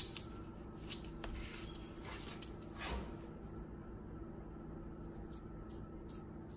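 Faint handling sounds: a few light taps and clicks in the first three seconds and some small high ticks near the end, over a steady low hum.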